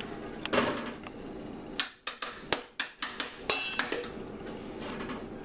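A quick run of sharp knocks and clicks, about eight in two seconds, one of them with a short ringing clink.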